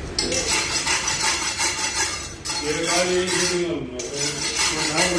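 Steel knife blade scraped in quick repeated strokes: a rapid metallic rasping that starts just after the beginning and pauses briefly about two and a half seconds in.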